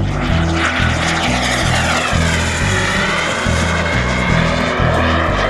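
Radio-controlled model aircraft flying past, its engine noise sweeping down and back up in pitch as it passes. Music with a repeating bass line plays alongside.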